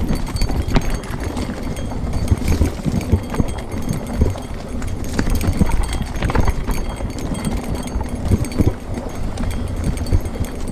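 Mountain bike riding fast down a rocky dirt trail: tyres running over stones and earth with a steady low rumble, and frequent irregular knocks and rattles from the bike as it hits rocks.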